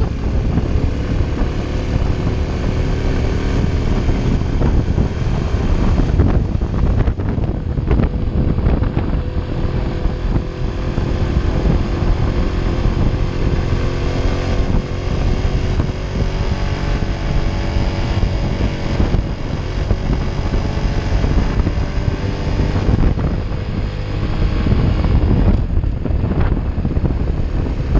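Honda Innova 125's small single-cylinder four-stroke engine running under load up a steep climb, its note wavering slightly, with heavy wind rumble on the microphone.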